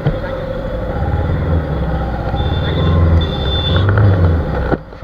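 Motorcycle engine running in traffic, a loud steady low rumble that swells about three seconds in. It cuts off suddenly near the end.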